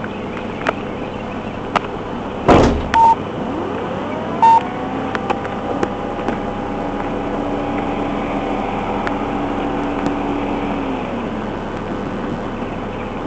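Police patrol car running, heard from inside the cabin: steady engine and road noise, a single loud thud about two and a half seconds in, two short electronic beeps, then a whine that rises, holds steady for several seconds and fades out near the end.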